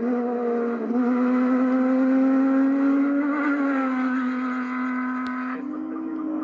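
Off-road race truck engine running hard at high revs as it races past, its pitch climbing slightly through the middle then dropping back, with a brief dip about a second in.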